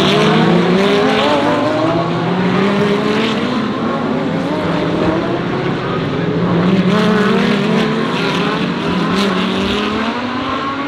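Several GT3 race cars accelerating in turn, their engine notes rising in pitch and dropping back at each upshift, with the cars overlapping one after another.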